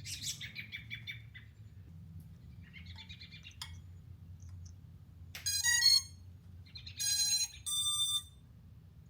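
Small birds chirping, then three loud electronic beeps in the second half; the first slides in pitch and the last two step up in pitch.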